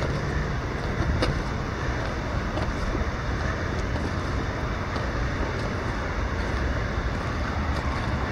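Steady outdoor background rush with a low rumble, from a town riverside, with a few faint footsteps.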